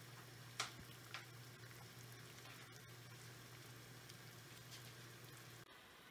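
Saucepan of water at a rolling boil: faint, steady bubbling, with two short clicks about half a second and a second in.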